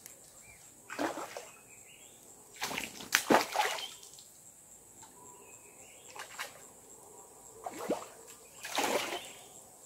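A hooked fish splashing at the river's surface in several short bursts as it is hauled in on a hand-pulled line.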